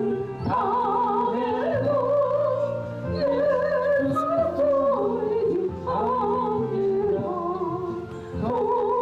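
Korean gospel praise song: a solo voice singing the melody with a wide vibrato over a steady instrumental backing, with brief breaks between phrases.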